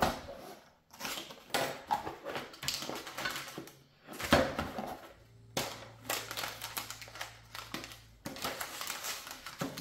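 Model-kit hull parts being handled on a workbench: irregular clicks, taps and crinkling, with a sharper knock about four seconds in.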